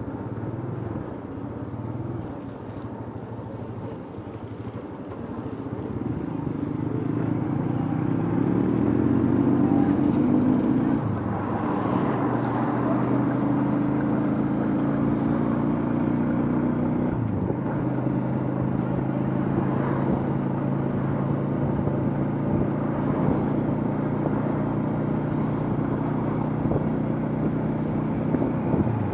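Bodaboda motorcycle's engine heard from the pillion seat, rising in pitch and getting louder as it speeds up a few seconds in, then running steadily at cruising speed.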